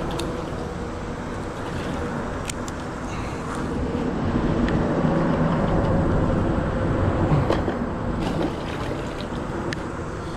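Road traffic on the bridge overhead: a steady low rumble that swells for a few seconds about halfway through as vehicles pass. A few light clicks are heard over it.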